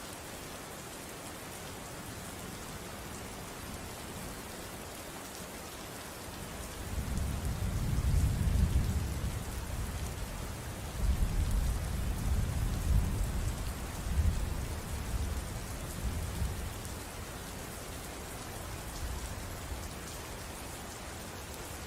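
Steady rain falling, with a roll of thunder that builds about a third of the way in, rumbles in several low swells through the middle, and fades out well before the end.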